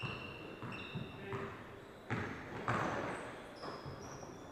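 Basketball game sounds: a ball bouncing several times, sneakers giving short high squeaks, and indistinct voices of players and onlookers.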